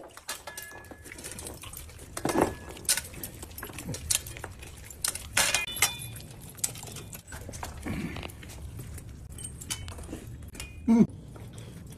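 People eating roasted chicken by hand: many scattered small clicks and light metallic jingling, with a few brief mumbles.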